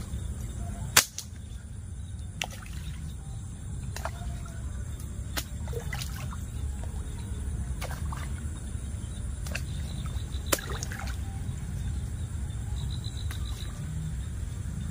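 Scattered sharp pops and small splashes at the surface of a fish pond as food is tossed in and fish take it, the loudest about a second in, over a steady low rumble.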